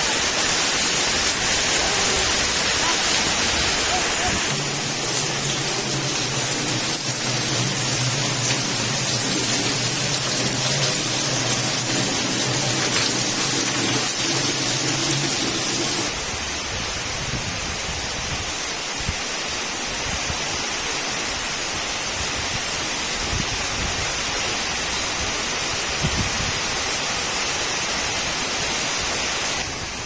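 Heavy rain falling in a steady hiss, with water streaming onto the ground in the last part. A steady low hum runs under the rain through the middle stretch.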